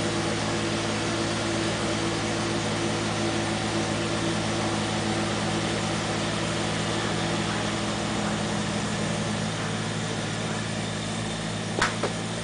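Small diesel farm tractors running steadily as they till a wet rice paddy, a continuous engine drone whose note shifts slightly about nine seconds in. A single sharp click sounds near the end.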